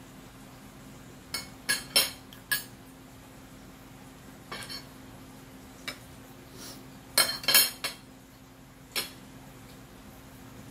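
Metal spoon and fork clinking and scraping against a dinner plate while eating: a quick run of four clinks about a second and a half in, single clinks in the middle, another cluster about seven seconds in and a last clink about nine seconds in. A steady low hum runs underneath.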